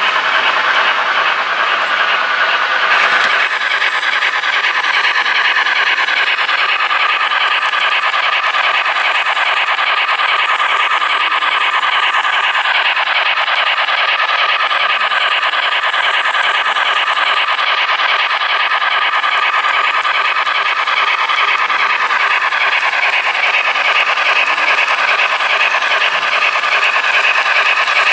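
Die-cast MTH model train led by a Norfolk & Western Class J 611 steam locomotive running on model track: a steady, dense rolling rattle with hiss. The sound changes about three seconds in.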